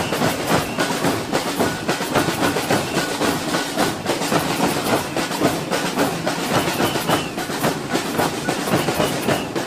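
Marching samba drum band playing snare drums and large bass drums together in a fast, dense, steady rhythm.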